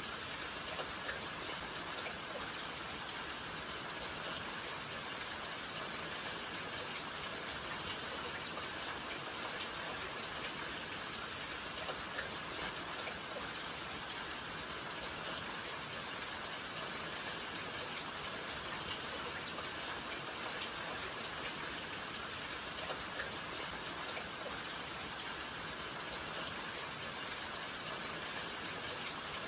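Steady rainfall: a dense, even hiss with scattered individual drops ticking on a surface.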